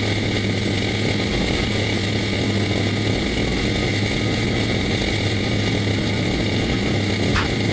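Two-stroke chainsaw running at a steady speed, with one short click near the end.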